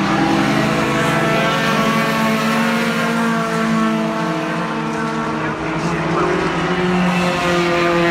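A pack of racing pickup trucks driving past in a close group, several engine notes overlapping and shifting in pitch as the trucks go by one after another.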